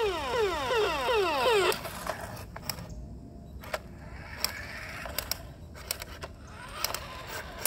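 Toy police car's electronic siren sounding in rapid falling sweeps, about three a second, cut off suddenly under two seconds in. After that the radio-controlled car rolls on concrete, with faint tyre noise and scattered clicks.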